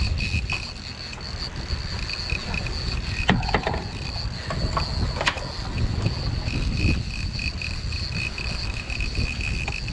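Boat running on the water with a low rumble and wind on the microphone, and a steady high-pitched whine above it. A couple of sharp clicks come about three and five seconds in.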